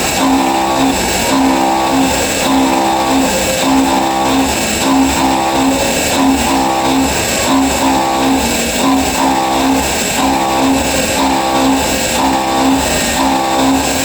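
CNC milling machine's end mill cutting aluminium on a high-speed dynamic (trochoidal) toolpath: a steady spindle-and-cutting whine that swells and fades about once a second as the tool loops in and out of the cut.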